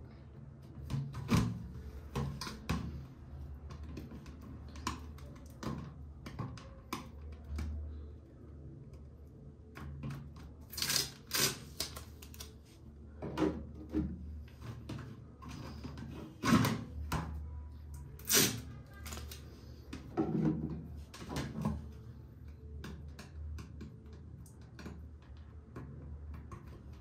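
Irregular clicks, taps and knocks of small household items being picked up, moved and set down while a bathroom cabinet area is cleared and organised, with a few louder knocks around the middle.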